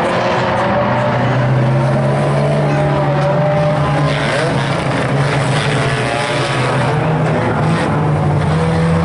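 Several short-oval race cars lapping the track, their engines running hard and rising and falling in pitch as the drivers accelerate and lift through the bends.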